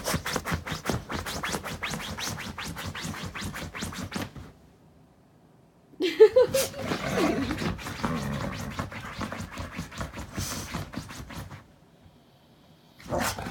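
Siberian husky digging at a fabric-covered bed with its front paws: rapid, rhythmic scratching that stops about four seconds in. After a short pause comes rougher scrabbling and rustling with muffled snuffling as its nose is pressed into the bed, then one more brief scratch near the end.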